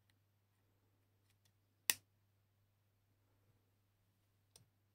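A sharp single click about two seconds in, a USB-C charging plug seating in the opened smartphone's port, followed by a fainter click near the end, over a faint steady low hum.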